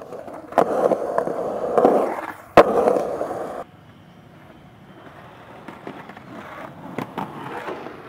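Skateboard wheels rolling on concrete, broken by sharp board clacks, the loudest about two and a half seconds in. The rolling stops suddenly at about three and a half seconds, leaving quieter background with a few fainter clacks.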